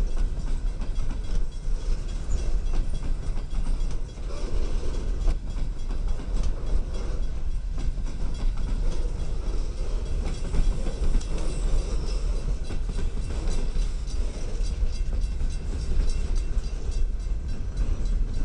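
Empty coal train's freight cars rolling past: a steady rumble of steel wheels on rail with irregular clacking.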